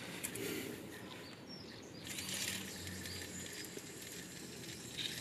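Aerosol lubricant can spraying through its thin straw onto a rubber exhaust hanger, a steady hiss starting about two seconds in.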